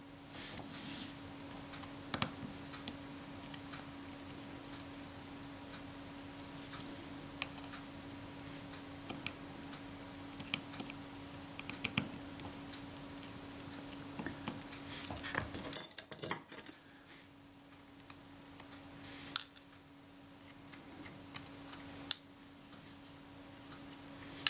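Small metallic clicks and scrapes of fine hand tools (a small screwdriver and tweezers) working the screws of a Synchro-Compur leaf shutter's outer case. A louder clatter of clicks comes about sixteen seconds in, over a steady low hum.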